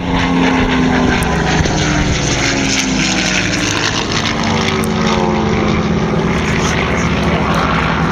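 Propeller aircraft engine running loudly and steadily, its note sliding down in pitch partway through.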